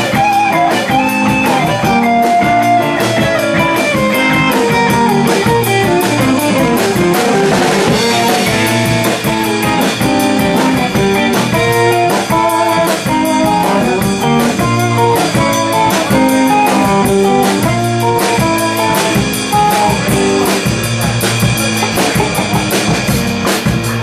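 Live rock band playing an instrumental passage: electric guitar lines over electric bass and a drum kit, loud and steady.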